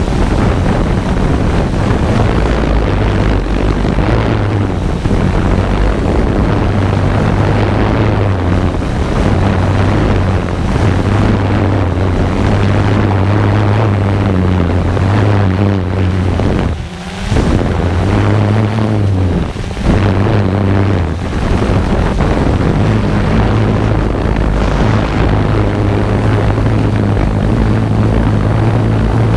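Multirotor drone's propellers and motors buzzing steadily, heard up close from the drone's own camera, the pitch shifting up and down as the motors change speed, with a brief drop a little past halfway.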